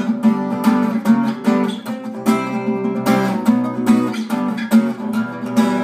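Acoustic guitar strumming chords in a steady rhythm, an instrumental passage between sung verses.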